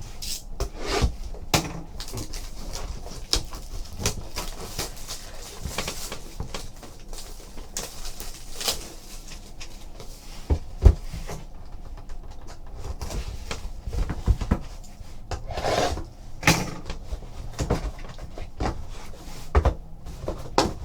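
A trading card box being handled and opened: irregular rustling of cardboard and packaging, with scattered taps, scrapes and a few sharper knocks.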